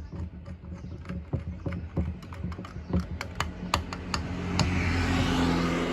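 Rapid small clicks and taps of headlight parts being handled and fitted together. About four and a half seconds in, a vehicle engine sound swells up beneath them.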